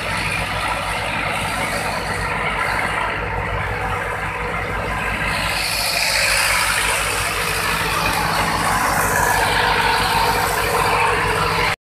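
Fishing boat's engine running steadily underway, a low pulsing drone under the rushing of water and wind. The rushing gets louder about halfway through.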